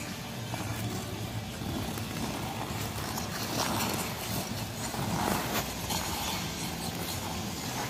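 Steady noise of an ice arena during skating practice, with skate blades gliding and scraping on the ice and a low hum underneath, swelling a little about halfway through.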